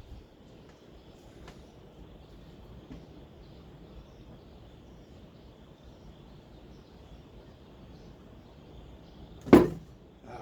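Low steady hiss, then near the end a single sharp shot of a brad nailer driving a temporary brad into the wood.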